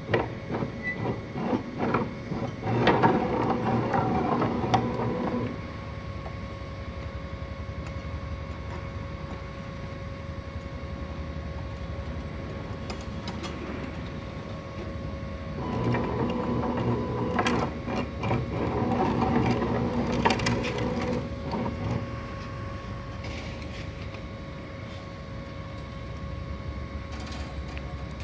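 Workshop machinery humming steadily, with two louder spells of mechanical running and clatter, from about 3 to 5 seconds in and again from about 16 to 22 seconds in. Scattered sharp metallic clicks and taps come from steel wire being handled and fed through the fence machine's rollers.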